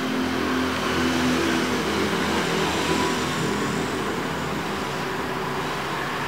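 Steady mechanical drone with a low hum that is strongest for the first couple of seconds.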